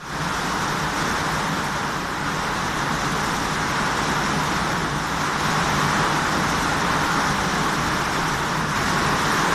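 Heavy rain pouring down, a steady, even rush with a faint low hum underneath.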